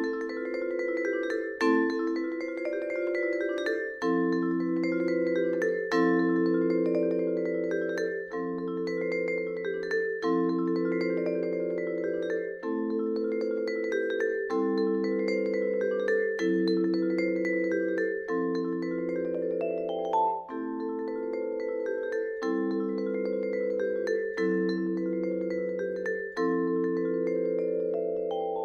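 Solo vibraphone playing a slow passage of chords, a new chord struck about every two seconds and each left ringing into the next, with a short rising run of notes about two-thirds of the way through.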